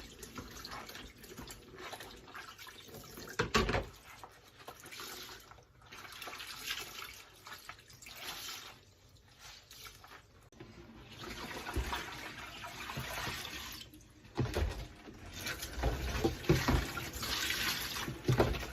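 Water splashing and running in a kitchen sink as hand-washed laundry is handled and the sink is refilled with water to rinse it, with a few knocks against the sink. The water sound grows fuller and steadier in the second half.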